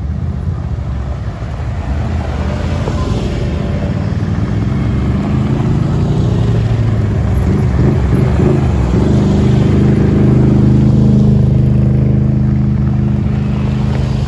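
Engines of a line of ATVs and side-by-side UTVs running as they drive slowly past one after another. The sound grows louder as machines come close and is loudest about two-thirds of the way through, where one steady engine note dominates.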